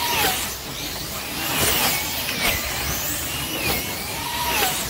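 Several wing slot cars' electric motors whining as they race around the banked track, each whine rising and falling in pitch as a car passes, over a steady rushing noise of the cars on the track.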